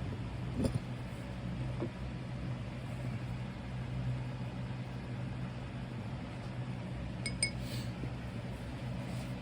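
Steady low mechanical hum throughout, with a few light knocks near the start and two short, bright metallic clinks a little after seven seconds in, from handling tools and molding gear.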